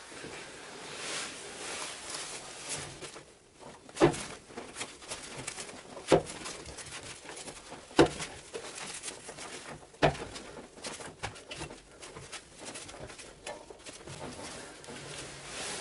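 A V-belt being worked onto a lathe's multi-groove V-belt pulley by turning the pulley by hand: a soft rubbing, scraping handling sound with four sharp clicks about two seconds apart.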